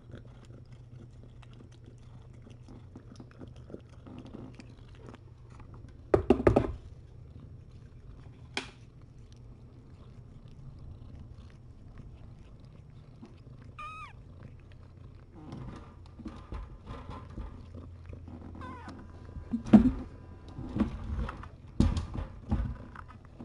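A cat purring steadily, with a single short kitten mew about fourteen seconds in. A few loud knocks and rustles close to the microphone come around six seconds in and again near the end, as the mother cat grooms her kittens right up against it.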